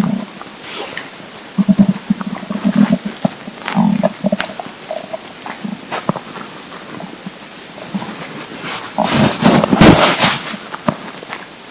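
Hungry, empty stomach rumbling and gurgling in short low growls, several in quick succession through the first half. About nine seconds in comes a longer, louder, rushing burst.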